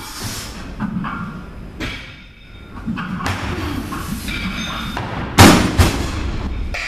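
A loaded barbell of about 185 kg, with bumper plates, is brought down from overhead onto wooden jerk blocks. It lands with a heavy thud about five and a half seconds in, and a second, smaller thud follows a moment later as it settles.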